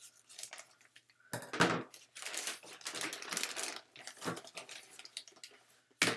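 Plastic poly mailer crinkling and rustling as it is opened and handled, with a louder burst of rustling about a second and a half in and a short sharp one near the end.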